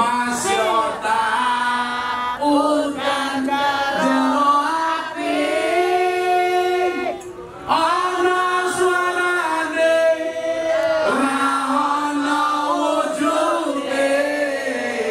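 Voices singing a humorous Javanese song in a chanting style, with long held notes and a short break about halfway through.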